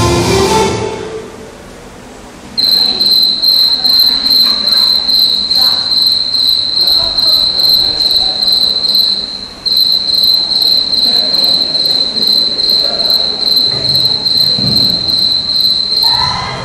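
Cricket chirping: a loud, steady high-pitched trill pulsing a few times a second. It starts suddenly a couple of seconds in, after music fades out, breaks off for a moment midway, resumes, and stops just before the end.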